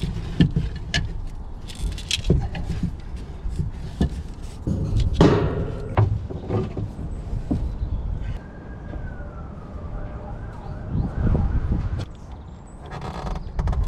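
Knocks, clicks and scraping of hand work on compressor parts, with a faint wavering whine in the background around the middle.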